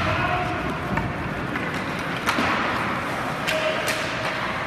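Ice hockey play along the boards: several sharp knocks and clacks of sticks, puck and players against the boards and glass, the loudest a little past two seconds in, over steady rink noise.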